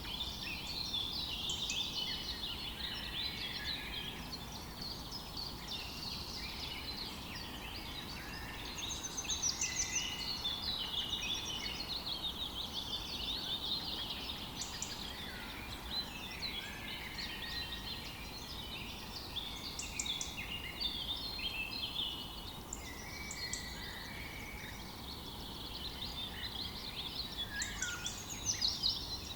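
Many songbirds chirping and singing at once, a dense chorus of overlapping short calls and trills, over a faint steady low hiss.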